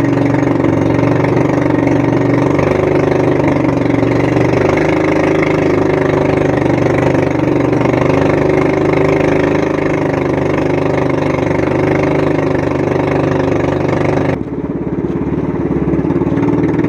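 Motor outrigger boat's engine running steadily under way, a constant droning note. About two and a half seconds before the end the sound abruptly turns duller as the higher noise drops away, while the engine keeps running.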